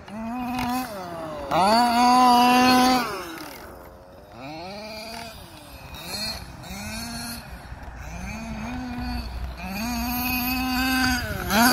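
HPI Baja 1/5-scale RC truck's two-stroke gasoline engine revving up and falling back over and over as the truck is driven hard, with the loudest bursts about two seconds in and again near the end.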